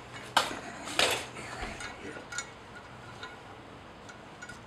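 Stainless steel wall bracket clinking against screw heads as it is pushed back onto screws started in wall anchors. Two sharp metallic clinks come about half a second and a second in, followed by faint small ticks as the screws are turned by hand.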